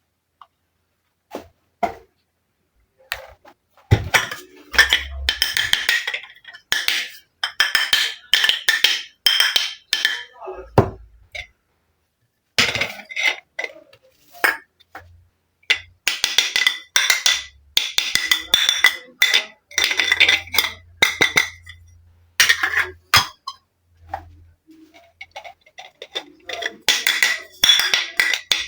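Small plastic toy dishes and kitchen pieces clinking and clattering as they are handled, tapped and set down, in quick clusters of sharp clicks with short pauses between.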